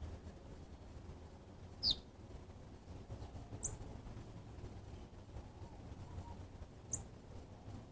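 Violaceous euphonia calling: three short, high notes spaced a couple of seconds apart. The first, about two seconds in, slides downward; the next two, about four and seven seconds in, are very high and brief.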